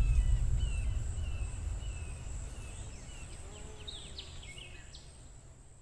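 A deep low rumble from a designed kaiju sound effect dies away slowly to silence. Faint bird chirps and a steady high thin whine sit over it, with a flurry of chirps about four seconds in.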